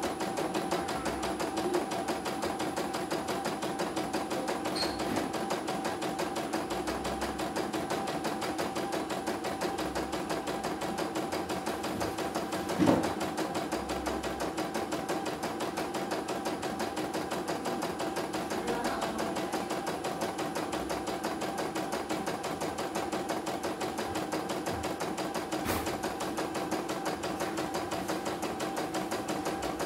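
CNY computerized embroidery machine stitching a test design: a steady, rapid rhythm of needle strokes over the hum of its motor, with one louder knock about thirteen seconds in.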